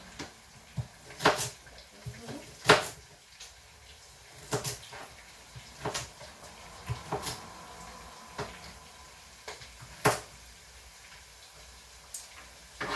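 Kitchen clatter: a scattering of sharp knocks and clicks from utensils, lids and containers being handled, with quiet between them.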